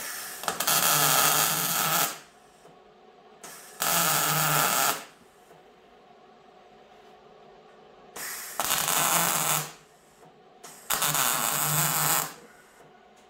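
Arc welding a steel reinforcement plate to the inside of a truck frame: four short stitch welds, each a crackling hiss lasting one to two seconds that starts and stops abruptly, with short pauses between.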